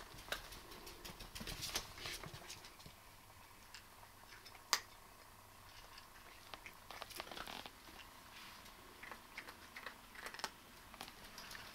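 Two cats eating from food bowls: faint, irregular small clicks and crunches, with one sharper click a little before halfway.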